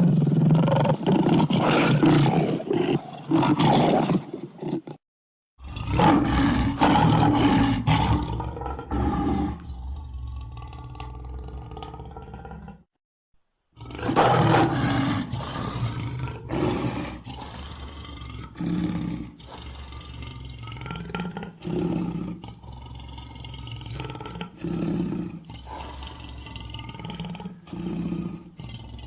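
Animated lion roar sound effects for Alex the lion: a series of loud roars in three bursts, broken by short silences about five and thirteen seconds in. The last burst trails off into a run of shorter, softer roars every second or two.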